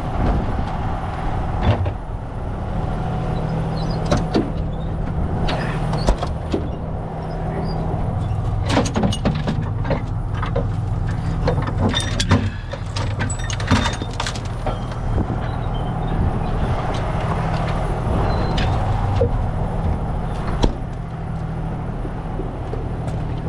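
A heavy truck's diesel engine idling steadily, with scattered knocks and clanks of recovery rigging being handled, thickest through the middle.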